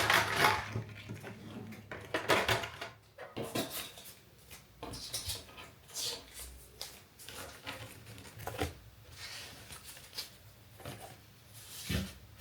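Irregular light clinks, taps and rustles of small objects being handled and set down on a hard surface, with a louder knock near the end.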